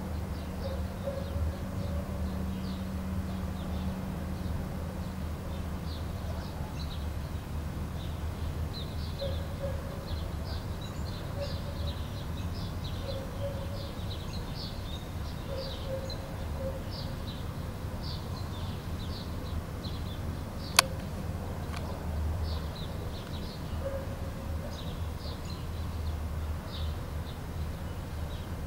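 Outdoor ambience: small birds chirping repeatedly in short, scattered calls over a steady low rumble, with one sharp click about two-thirds of the way through.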